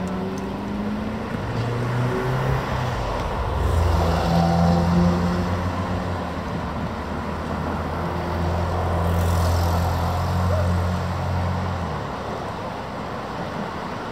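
Road traffic crossing the bridge: vehicle engines hum low over tyre noise, swelling as a vehicle passes about four seconds in and again from about nine to eleven seconds, and the engine hum drops away about twelve seconds in.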